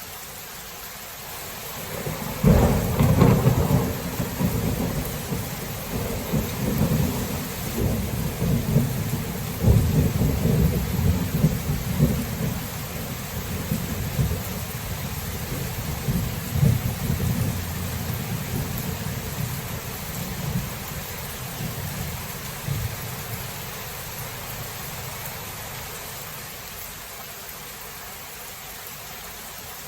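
Steady rain with a sudden thunderclap about two and a half seconds in. A long, low rumble of thunder follows, swelling several times and dying away over about twenty seconds.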